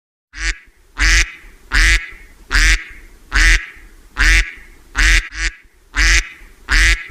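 An animal's call repeated in an even series, about ten calls a little faster than one a second, starting abruptly about half a second in.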